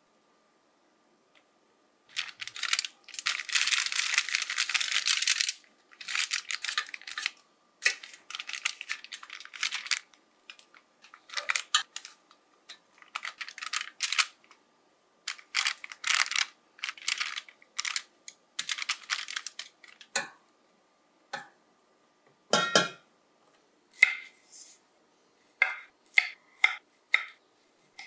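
Kitchen food-preparation sounds: clusters of small clicks, taps and scrapes, with a dense scratchy stretch early on and one heavier knock about three quarters through. Near the end come separate sharp taps of a knife cutting string beans on a wooden chopping board.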